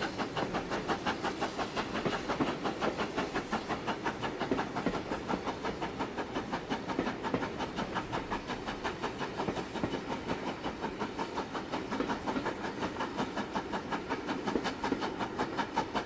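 A train running, a steady rhythmic clatter of about four to five beats a second with some hiss, laid over the pictures as a soundtrack.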